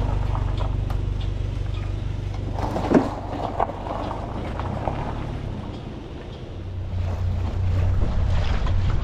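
Wind buffeting the microphone as a steady low rumble, with a brief sharp noise about three seconds in; the rumble grows louder and more uneven near the end as the boat crosses open water.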